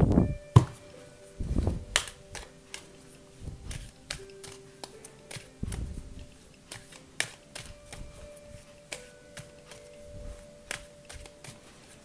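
A deck of oracle cards being shuffled and handled by hand: a run of quick, irregular card clicks and flicks with a few soft thuds. Soft background music with long held notes plays underneath.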